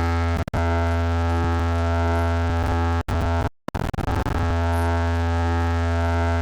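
DJ sound system playing a loud, sustained synthesizer drone with a heavy steady bass tone under it. It cuts out briefly about half a second in, and again for over half a second around three seconds in.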